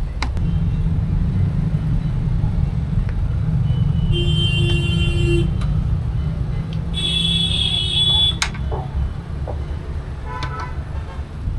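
Steady low rumble of road traffic with two horn toots, the first about four seconds in and a longer one about seven seconds in that ends with a sharp click.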